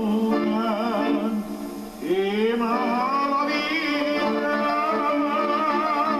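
A man singing a ballad into a microphone with strong vibrato, over band accompaniment. About two seconds in his voice slides up into a long held note.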